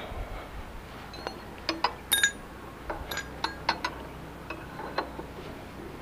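Sharp metallic clinks of a steel spanner against a motorcycle's rear axle nut as the nut is worked loose, about a dozen irregular clinks, starting about a second in and ending about five seconds in.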